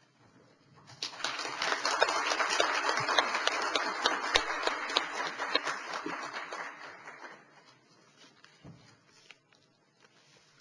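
Audience applauding: the clapping starts about a second in, holds for several seconds and dies away.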